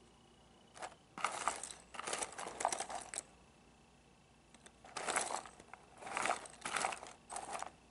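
Loose cardboard jigsaw puzzle pieces rattling and clattering in their box as a hand rummages through the pile, in two spells with a quiet gap of about two seconds between them.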